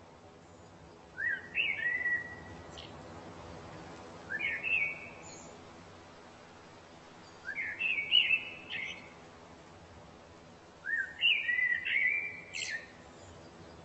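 A songbird singing short whistled phrases of quick rising notes, four phrases spaced about three seconds apart.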